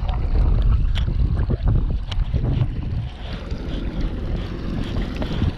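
Wind rumbling on the microphone aboard a small boat, with scattered sharp knocks and clicks of gear being handled.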